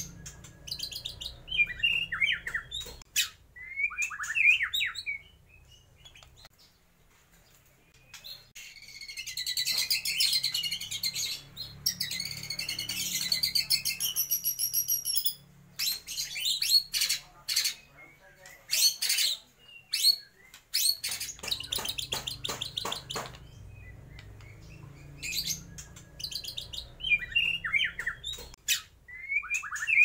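A caged white-rumped shama sings a varied, loud song. It starts with short sharp sliding phrases, then gives a long dense warble and a run of rapid clipped notes, then sharp phrases again near the end. The song is full of mimicked calls, which the keeper names as lovebird, kapas tembak and mountain spiderhunter.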